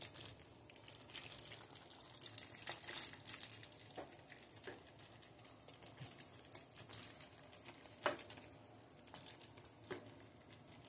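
Plastic slotted spoon stirring through thick, cooked pot roast stew in a crock pot: faint wet squelching with a few light, irregular knocks of the spoon.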